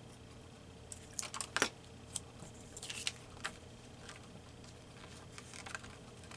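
Paper being handled at a craft table: a cluster of short crisp rustles and clicks about one to three and a half seconds in, then a few fainter taps.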